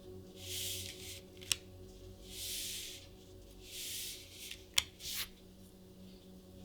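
Trading cards being handled: about four soft swishes as cards slide against each other, with two sharp clicks.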